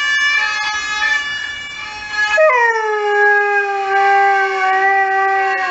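Saluki howling: one long howl begins about two seconds in, dipping slightly in pitch and then held steady. Before it, an emergency-vehicle siren sounds as steady held tones, the sound the dog is howling along with.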